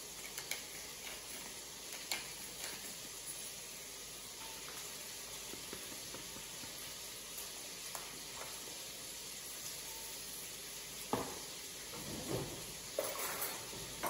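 A pepper mill grinding over a glass bowl, with a few small clicks early. Near the end a fork knocks and scrapes against the glass bowl as it mixes egg yolks with grated cheese, over a steady low hiss.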